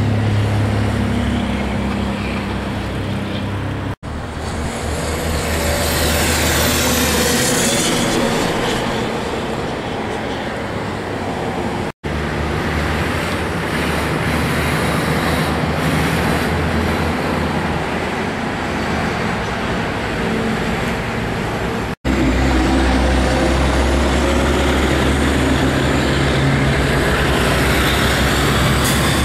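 Highway traffic passing close by: diesel tractor-trailers and cars with engine drone and tyre noise rising and falling as each goes past. The sound drops out for an instant three times, and in the last part a semi truck's diesel engine is loudest as it drives by.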